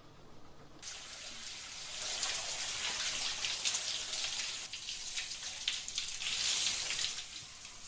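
Handheld shower head spraying water. The spray starts abruptly about a second in and keeps running, its hiss and splash shifting in level as it is moved.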